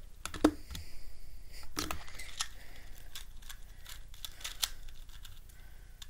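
ShengShou Mr. M 2x2 speedcube being turned fast during a solve: a quick run of plastic clicks and clacks, with one sharp, louder click about half a second in.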